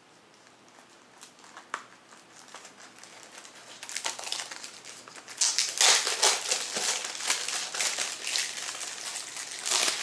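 Plastic packaging crinkling as it is handled and pulled off, faint with a few small clicks at first, then growing into loud, rapid crackling from about four seconds in.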